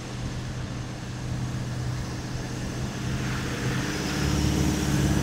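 Four-wheel-drive vehicle's engine running steadily as it drives, growing louder about three seconds in.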